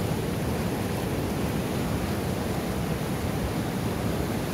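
Small Himalayan river in monsoon flow rushing over rocks: a steady, even rush of water.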